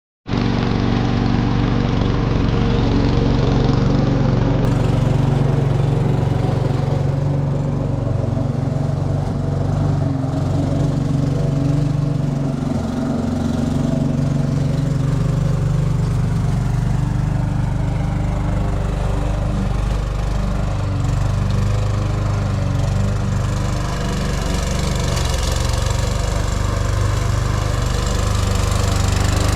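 Briggs & Stratton 450E series lawn mower engine running steadily. It cuts in abruptly, already running, just after the start.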